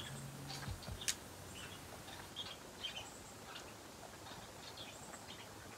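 Large plastic bucket-style hamster wheel on a PVC-pipe stand turning almost silently on its dual bearing: only faint, scattered light ticks, with one sharp click about a second in.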